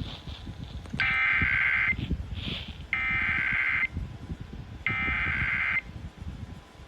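Emergency Alert System SAME header bursts broadcast over FM radio: three harsh, buzzy digital data screeches of about a second each, about a second apart. They open an EAS activation, here a child abduction emergency (Amber Alert).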